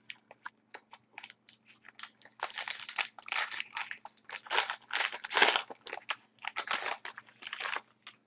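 Foil wrapper of an Upper Deck SP Authentic hockey card pack crinkling as it is torn open and the cards are pulled out: irregular crackles that come in a few louder clusters.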